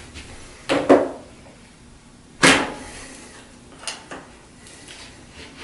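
Bicycle tyre bead being levered over the metal rim wall with a plastic tyre lever: sharp snaps as the bead pops off the rim, one about a second in and a louder one about two and a half seconds in, then two faint clicks.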